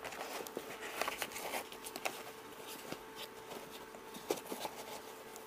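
Soft rustling and small irregular clicks of a soldering kit's tools being handled and tucked back into their fabric case, over a faint steady hum.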